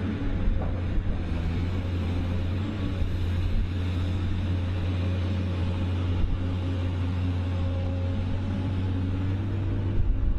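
Heavy machine's engine running steadily with a deep, even hum.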